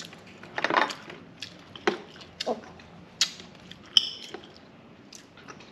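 Scattered clicks and crackles of a boiled balut's shell being peeled by hand, with a spoon clinking against a small bowl about four seconds in.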